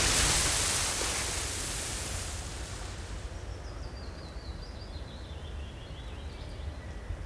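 Water washing and splashing ambience with a low rumble underneath. It fades over the first few seconds to a soft steady hiss, and a faint, high, wavering whistle runs through the second half.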